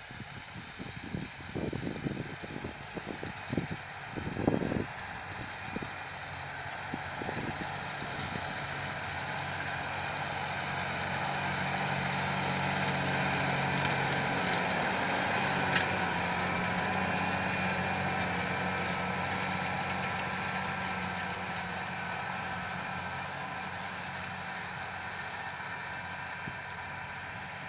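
John Deere tractor's diesel engine running steadily as it pulls a disc harrow across a field, growing louder as it passes close by around the middle and then fading as it moves away. Wind buffets the microphone in the first few seconds.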